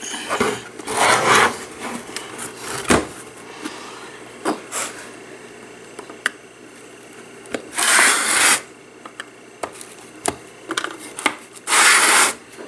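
White plastic jukebox housing being turned over and handled on a wooden desk: irregular scraping and rubbing with a few clicks and knocks, the loudest scrapes about eight seconds in and near the end.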